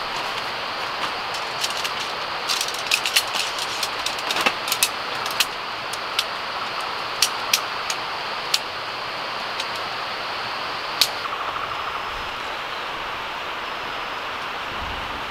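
Sharp clicks and rattles of shock-corded tent pole sections being handled and snapped together, a cluster of them in the first half and one more about two-thirds through, over a steady rushing background noise.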